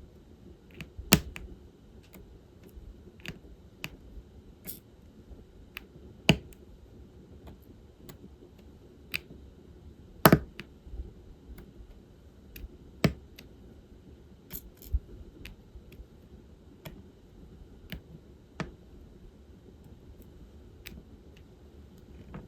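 Diamond painting pen tapping resin drills down onto the sticky canvas: irregular sharp little clicks and taps, a few a second at most, some louder than the rest.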